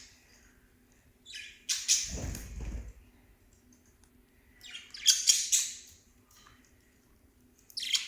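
Small pet parrots chirping and squawking in short harsh bursts, about two seconds in, again around five seconds, and once more at the end. A dull low thump comes with the first burst.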